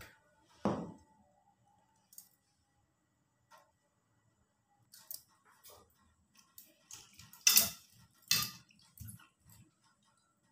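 Kitchen handling noises: a single knock about a second in, then scattered small clinks and two louder clatters near the end as a stainless steel bowl of cut vegetables in water is picked up and handled.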